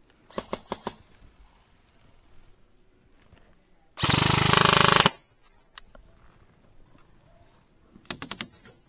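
Airsoft rifle fire: a few quick shots just after the start, a loud rapid full-auto burst of about a second in the middle, and a short burst of about five shots near the end.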